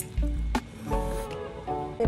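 Background music: held steady notes over a repeating bass pulse, with a couple of short clicks.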